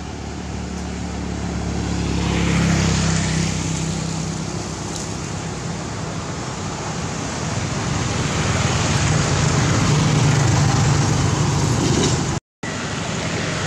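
Road-traffic noise with a low engine hum, swelling as vehicles pass about two to three seconds in and again around ten seconds. The sound drops out for a moment near the end.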